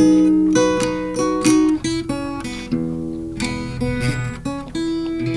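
Background music: acoustic guitar plucking and strumming, with no singing.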